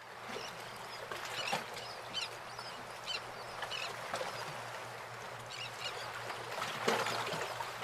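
Birds making repeated short calls over a steady outdoor background hiss, with a faint low hum underneath.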